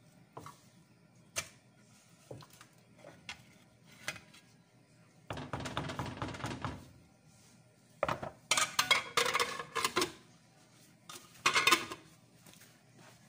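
A wooden spoon knocking lightly against a large metal pot while stirring. After that comes louder clattering of metal pot and lid, the loudest just before the end as the metal lid is set on the pot.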